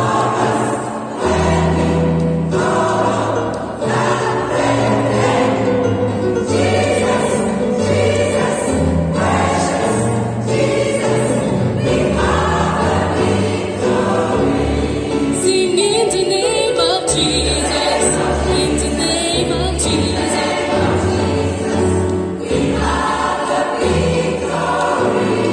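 Large mixed gospel choir of women and men singing in harmony, with sustained low bass notes underneath that change every second or two.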